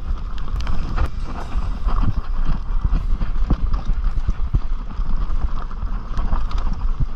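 Mountain bike rolling fast downhill over a rough dirt trail: tyres crunching over leaves and stones while the bike rattles and clatters with many irregular sharp knocks, over a steady low rumble.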